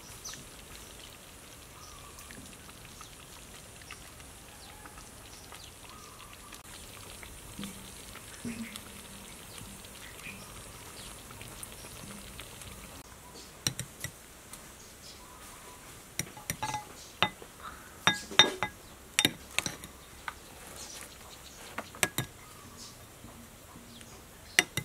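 Taro root in coconut milk ladled into a glass bowl, then a metal spoon clinking against the glass bowl in a run of sharp clicks through the second half.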